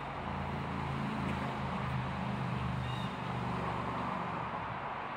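A steady low engine drone, with one short high chirp about three seconds in.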